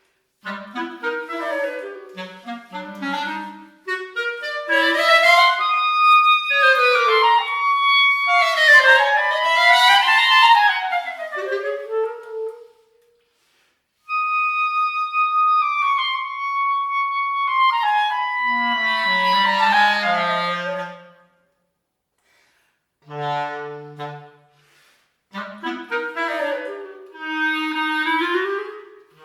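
Clarinets playing a fast, ornate passage of runs rising and falling, with two lines that often cross. Near the middle a single high note is held for a few seconds and then steps down. The phrases are broken by short silent pauses.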